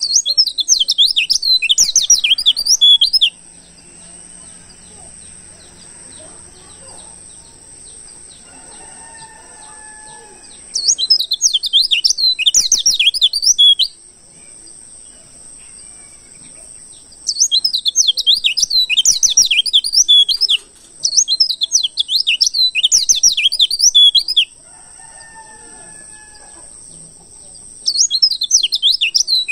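Wild white-eye (pleci) song used as a lure call: bursts of rapid, high twittering chirps about three seconds long, five times, with pauses between. A steady high tone runs underneath.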